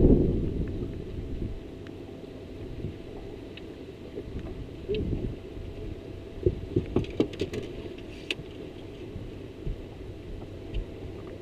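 Wind buffeting the microphone dies away in the first second or so on a bass boat's deck, leaving a low rumble and a faint steady hum. A scatter of light clicks and knocks about halfway through comes from rod, reel and feet on the deck as a fish is fought and netted.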